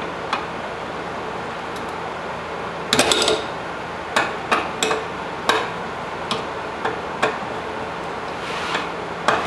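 A wrench clicking and clinking against the 14 mm fuel-line fitting on a fuel filter as it is loosened: scattered sharp metal taps, a quick cluster of them about three seconds in, over a steady hiss.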